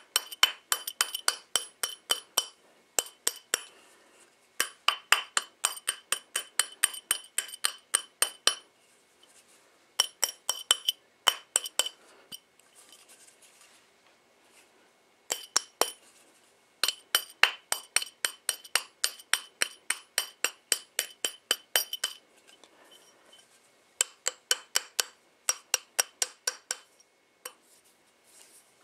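Runs of quick light hammer taps on a metal ring fitted on a steel ring mandrel, about four or five taps a second. Each tap clinks with a bright metallic ring, and the runs are broken by short pauses.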